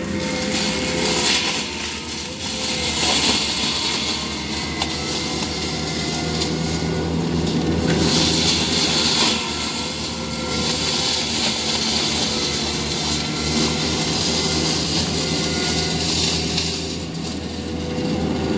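ASV RT-120 tracked loader running a Prinoth forestry mulcher head. The diesel engine works under load while the spinning mulcher rotor keeps up a steady whine, with louder shredding as the head chews through a small pine tree, strongest about halfway through.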